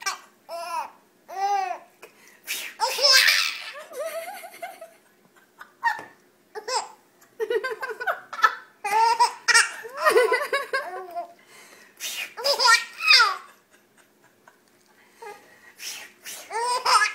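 Young baby laughing again and again in short, high-pitched bursts of giggles and belly laughs. Between them come brief hissing "swish swish" sounds from an adult, made to set her off.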